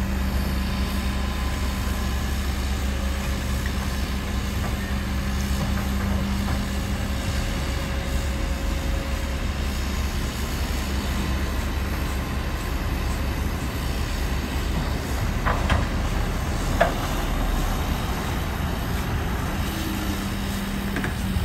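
Heavy diesel earthmoving machinery running steadily with a low engine drone, and two short knocks a little past the middle.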